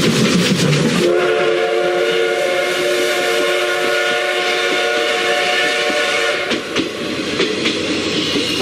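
Steam locomotive whistle blowing one long, steady chord of several notes for about five seconds, starting about a second in, over the hiss and rumble of the running train. After the whistle stops the train's running noise goes on, with repeated clicks.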